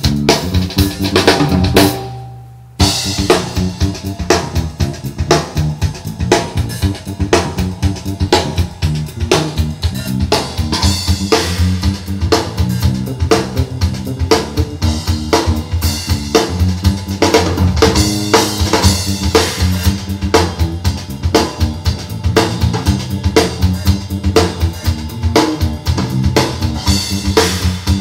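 Music with a full drum kit (kick, snare and rimshots) and bass, played back through Audioengine A5 powered speakers as a sound test. The music drops away briefly about two seconds in, then comes back in hard on the beat.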